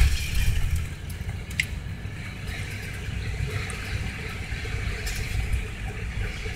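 Steady low rumble and hiss of a car driving slowly, heard from inside the cabin, with a single sharp click about one and a half seconds in.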